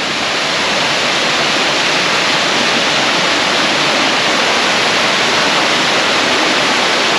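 Waterfall and the rocky creek cascading below it: a steady, loud rush of falling and tumbling water.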